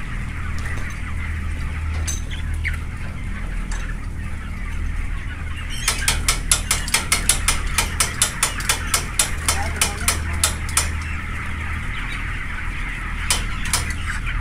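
A large flock of broiler chickens chattering and clucking over the steady hum of shed ventilation fans. About six seconds in, a fast run of sharp clicks, about four or five a second, lasts roughly five seconds, with a couple more near the end.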